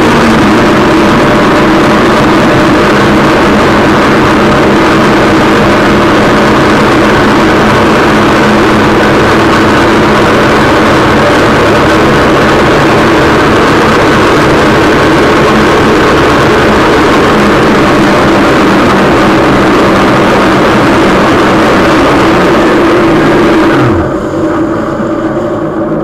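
Personal watercraft engine running at speed, loud and steady, under the hiss of rushing water and wind on the craft-mounted camera. About two seconds before the end the sound drops and turns duller.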